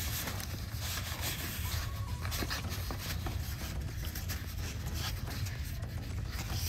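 Foam packing wrap rustling and rubbing as it is pulled and handled along a long car spoiler, in a continuous irregular crinkle over a steady low rumble.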